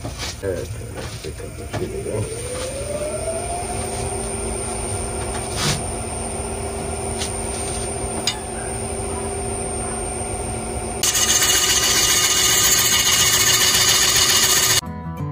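Wood lathe spinning a large, out-of-round oak crotch blank: the motor's whine rises in pitch about two seconds in as it comes up to speed, then holds steady, with a few sharp ticks. About eleven seconds in a gouge bites into the spinning oak with a loud rushing cut that stops abruptly near the end as guitar music takes over.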